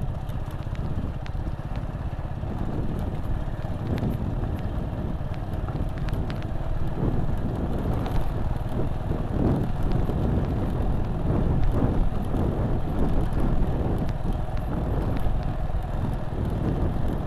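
Motorcycle ridden over a broken, off-road-like village road. The engine runs under a steady low rumble, with repeated knocks and rattles as the bike jolts over the rough surface.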